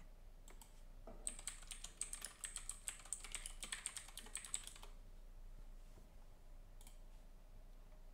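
Typing on a computer keyboard: a quick run of keystrokes lasting about four seconds, then a single click a little before the end.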